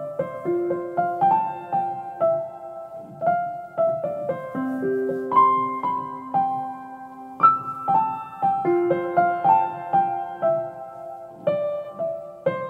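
Background music: a calm piano melody of single notes, each struck and left to fade.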